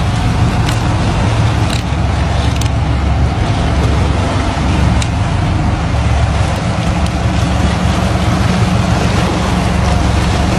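Steady low rumble of a small boat at sea, its motor running and water rushing along the hull, with a few faint ticks.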